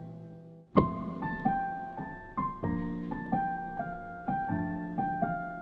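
Digital piano being played: chords and single notes struck about every half second, each left to ring and fade. The loudest chord comes a little under a second in, after a brief lull.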